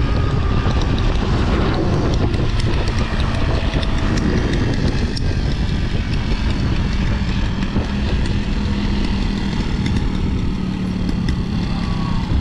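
Wind buffeting and road noise from riding, with a small engine running alongside. A steady engine tone comes through about halfway in.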